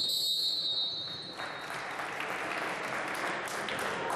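A sustained whistle blast for about a second and a half, then spectators applauding steadily.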